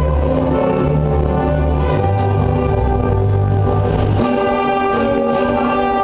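Loud music playing: held orchestral-sounding chords over bass notes that change about every second.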